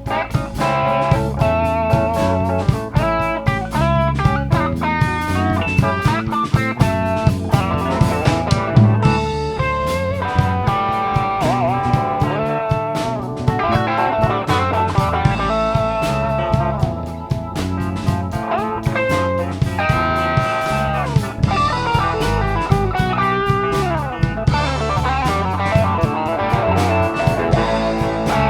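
Band music: guitar playing a melodic line with bent notes over bass and drums.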